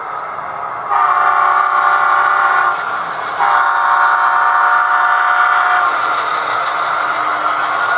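HO scale sound-equipped model diesel locomotive blowing its horn twice through its small onboard speaker: a chord of several notes held about two seconds, then again for about two and a half seconds. A steady running sound from the model locomotive follows.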